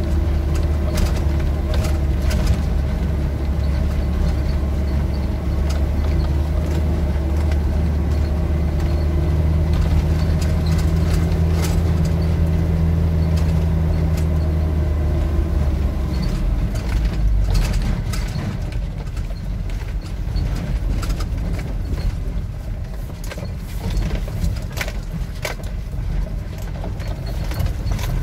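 A vehicle's engine running steadily, heard from inside the cab on a rough gravel track, with scattered knocks and rattles from the stones and the cab. About sixteen seconds in the deep engine hum drops off and becomes lower.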